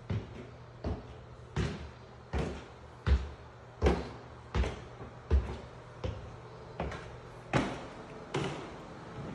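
Footsteps climbing hardwood stairs and then crossing a hardwood floor: a steady series of about a dozen thumps, a little more than one a second, loudest in the middle.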